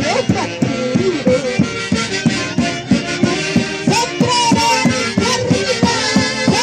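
Traditional folk music from a Huancayo orquesta: a sustained melody line over a quick, steady beat.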